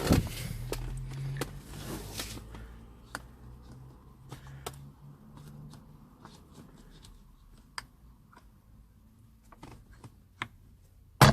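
A thin screwdriver working at the release clips of a BMW E90 steering-wheel airbag: scattered small clicks and scrapes, ending in a loud sharp click near the end as the airbag module pops loose.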